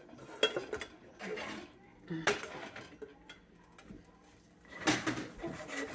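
Metal cookware clanking as a frying pan is handled and set as a lid on a stainless steel pot of unpopped popcorn kernels: a few separate knocks, the loudest about five seconds in.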